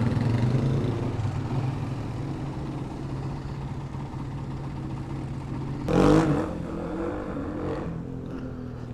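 A motor vehicle engine running nearby, loud at first and then fading to a steady low hum, with a brief louder surge about six seconds in.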